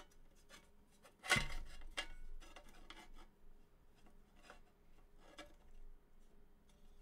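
Rubbing and scattered clicks as the casing of a Vantec NexStar DX external drive enclosure is handled and slid to open it, with one sharp knock about a second in.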